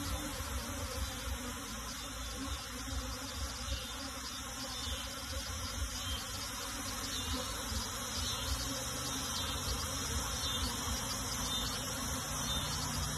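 A large cluster of honey bees buzzing steadily, the dense hum of many wings together.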